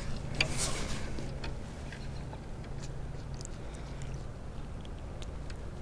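Light clicks and scrapes of a small bluegill being handled and unhooked, loudest in the first second, over a steady low hum.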